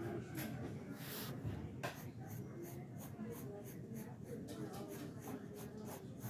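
Graphite pencil scratching across sketchbook paper in quick, repeated strokes as lines are sketched in.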